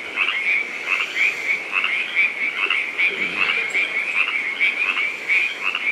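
A dense chorus of frogs calling: many short, high calls overlapping without a break.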